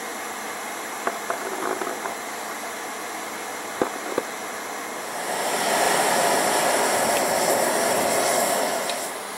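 Steady rushing of air, with a few light metal clinks about a second in and again near four seconds. From about five seconds until just before the end a louder steady roar: air forced through a charcoal briquette forge fire as the rebar heats.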